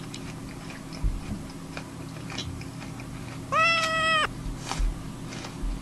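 A cat meows once, about three and a half seconds in: a single steady call under a second long. Around it come the small crisp crunches of someone biting and chewing an apple.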